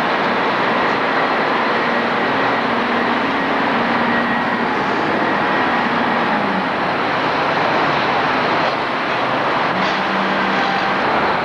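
Steady, loud machinery noise with a faint hum that drops in pitch about six and a half seconds in.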